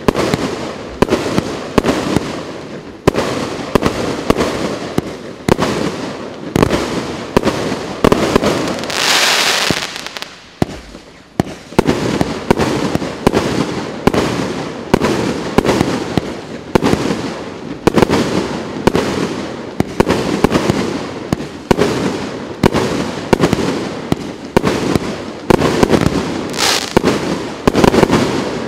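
A 25-shot fireworks cake firing shot after shot, about one a second. Each shot is a sharp bang that trails off into crackle and rumble. A brief hissing rush comes about a third of the way through and again near the end.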